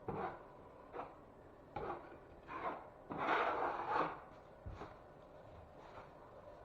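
Scraping strokes of a hand tool worked against a drywall patch, short strokes about once a second with a longer, louder stroke about three seconds in, then a few fainter ones.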